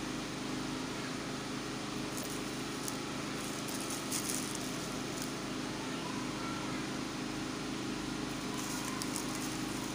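Steady background hum and hiss, with a few faint light clicks a few seconds in.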